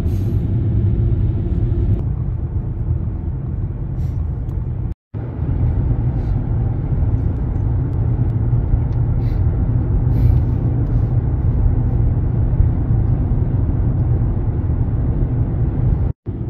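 Steady low rumble of a car driving on the road, tyre and engine noise together. It cuts out completely for a moment twice, about five seconds in and near the end.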